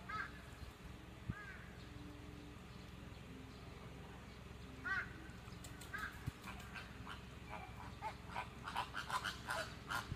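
Flamingos honking: a few separate short nasal honks at first, then a burst of rapid, overlapping honks and chatter from the flock over the last few seconds.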